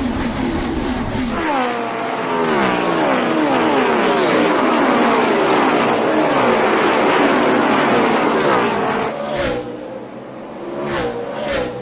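NASCAR Cup cars' V8 engines running at racing speed, loud, with the engine pitch falling again and again as cars go by. The sound thins out briefly about ten seconds in, then rises again.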